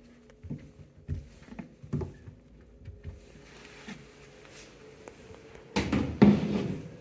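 Handling sounds at a washing machine: a few light knocks and clicks, then a louder clatter and rustle about six seconds in, over a faint steady hum.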